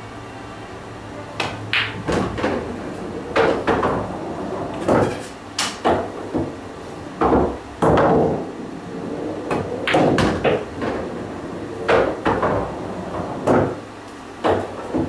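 Pool game on a pool table: a series of sharp knocks and clacks as the cue strikes the cue ball, balls collide, hit the rails and drop into the pockets. The last two object balls are pocketed.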